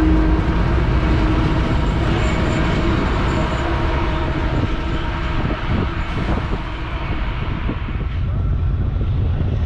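Freight train passing, its diesel locomotives and cars making a loud, dense low rumble with a few faint steady tones over it; the higher sounds fade in the last two seconds while the low rumble stays.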